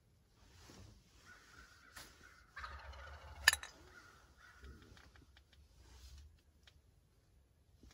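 Wild turkey gobbling: a rattling call lasting about a second, starting about two and a half seconds in, with fainter calls before and after it. A sharp click in the middle of the gobble is the loudest sound, and a fainter click comes about two seconds in.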